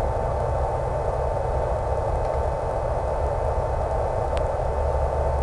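Steady rushing noise with a thin, constant whine: the in-flight sound of an electric RC plane's motor, propeller and airflow, heard through the hiss of an analog FPV video link.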